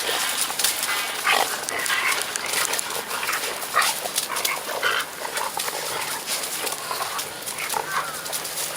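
Golden retriever puppies playing, giving short whines and yelps over a steady hiss.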